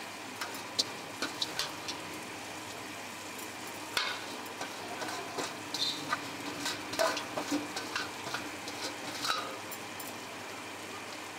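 Chicken masala sizzling steadily in a large aluminium pot over a gas flame, with scattered light clicks and rustles as chopped coriander and mint are spread over it by hand. The clicks and rustles are busiest from about four seconds in.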